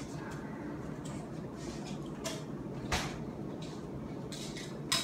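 Quiet room tone with a few scattered clicks and knocks, the sharpest one near the end.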